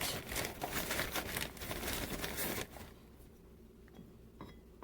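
Bag of powdered sugar crinkling as it is handled and poured into a bowl. The crinkling stops about two and a half seconds in, followed by a few faint light ticks.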